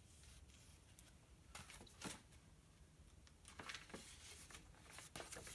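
Near silence with a few faint rustles and soft taps of a book's paper pages being handled and turned.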